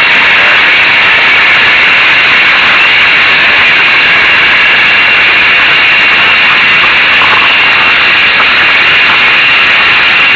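Zündapp M50 Bergsteiger moped's small two-stroke engine running steadily while riding, a loud, even noise with no change in pitch.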